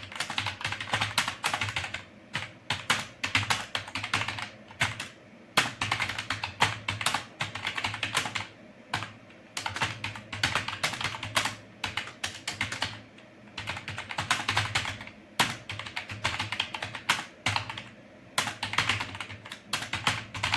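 Computer keyboard being typed on at a steady touch-typing pace: fast runs of key clicks broken by short pauses every few seconds.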